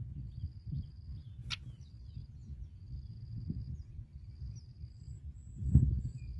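Outdoor ambience: a thin, high, buzzing note repeats in stretches of about a second over a steady low rumble. A sharp click comes about a second and a half in, and a louder low thump comes near the end.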